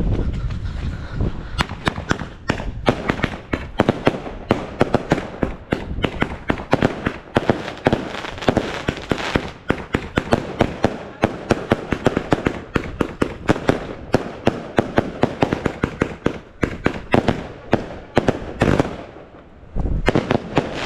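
Fireworks going off in rapid succession: a dense string of sharp bangs and cracks, several a second. It thins out near the end, then one more heavy bang follows.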